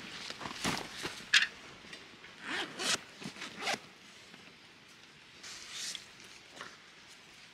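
Zipper on a padded fabric bag being pulled open in several short strokes over the first four seconds, with a softer zip or rub near six seconds.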